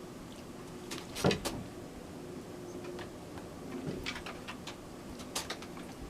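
Wooden bang board knocking on its support as a dog steps on it and tips it: a few sharp knocks, the loudest about a second in, with lighter clicks near the end.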